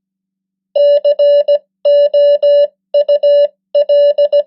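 Morse code sent at 15 words per minute as a single steady beep tone keyed on and off in dots and dashes, starting about three-quarters of a second in. It spells C, O, U, L, the first letters of "could".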